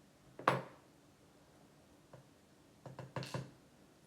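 Small sharp clicks and taps from handling the parts of a disassembled pin-tumbler deadbolt cylinder: one distinct click about half a second in, then a quick cluster of light clicks about three seconds in.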